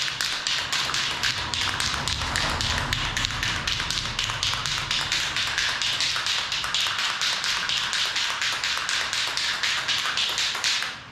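Aerosol spray-paint can being shaken hard, its mixing ball rattling in a steady, even rhythm of about five clicks a second, stopping near the end. It is the paint being mixed before spraying.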